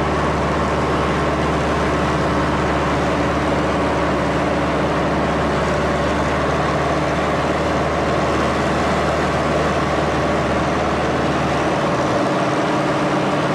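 A small plane's engine and propeller running steadily in flight, heard from inside the cabin as an even, loud drone with a steady hum under it; the deepest part of the hum drops away near the end.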